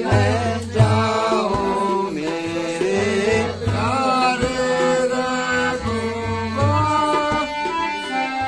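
A man sings a Ramlila verse with long, gliding held notes, accompanied by tabla and harmonium. The tabla's low drum strokes recur steadily under the voice.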